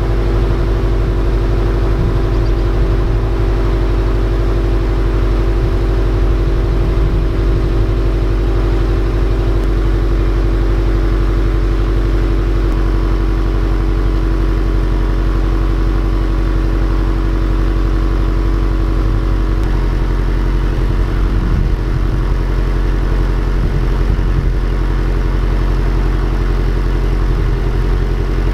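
Stock exhaust of a 2018 Subaru WRX STI's turbocharged 2.5-litre EJ flat-four boxer engine idling steadily while warming up after a cold start, with an even pitch and no revs.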